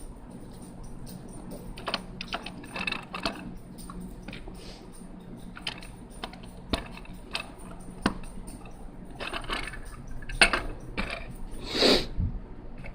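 Plastic Lego pieces clicking and clattering as they are handled and fitted together, in scattered irregular clicks, with a brief louder scrape near the end.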